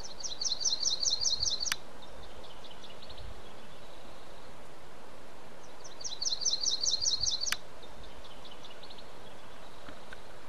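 A small songbird singing a fast trill of repeated high notes, twice, about six seconds apart, each followed by a few fainter notes, over a steady outdoor hiss.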